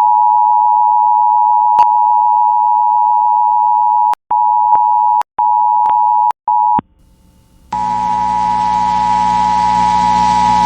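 Emergency Alert System two-tone attention signal on an FM station, a loud steady dual tone. About four seconds in it breaks into short chunks with clicks, drops out for about a second, then comes back over a layer of hiss and hum.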